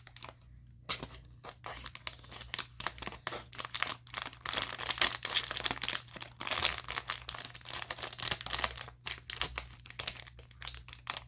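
Packaging being crinkled and torn open around a Pop-It bracelet, a dense run of sharp crackles and rustles starting about a second in.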